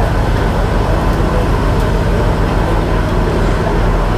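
A forge fire running with a steady noise and a low hum, as the steel blade heats in it.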